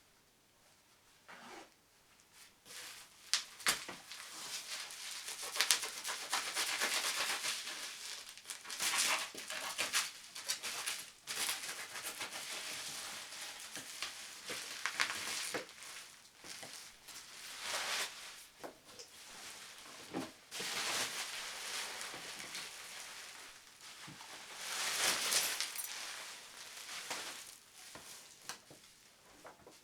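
Packaging being handled and unpacked: irregular rustling and crinkling, with scattered knocks and clicks.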